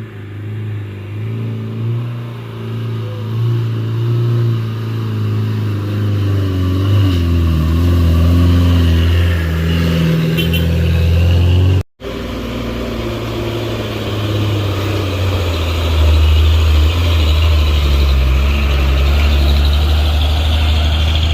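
A heavy road vehicle's engine working hard under load, growing louder about a third of the way through, with a momentary break in the sound near the middle before the engine sound carries on.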